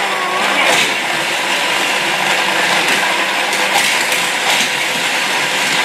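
Fastlane toy car racetrack set running, with a steady rattling clatter of plastic.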